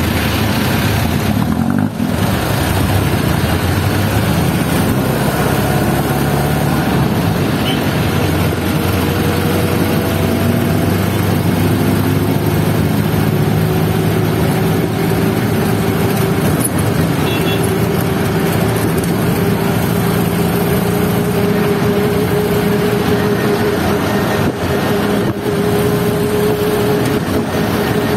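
Steady engine drone and road noise of a vehicle in motion, heard from on board. One whining engine note climbs slowly in pitch through the second half.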